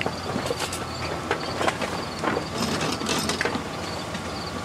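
Irregular metallic knocks and clanks from a bear climbing on and pawing at a pickup truck's bed and toolbox, over a steady low rumble.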